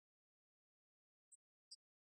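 Near silence, broken by two faint, very short high-pitched blips in the second half.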